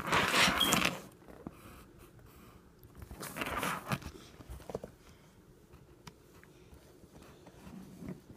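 Green coloured pencil scratching across paper in quick scribbling strokes. There are two bursts of about a second each, one at the start and one about three seconds in, with faint taps of the pencil between.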